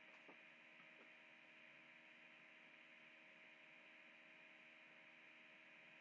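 Near silence: faint steady electrical hum and hiss of the recording.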